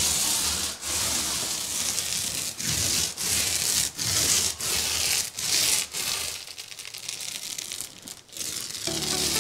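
Wet filler (joint compound) being spread over fibreglass wall mesh with a roller and smoothing blade: repeated rubbing, scraping strokes, each broken by a brief pause.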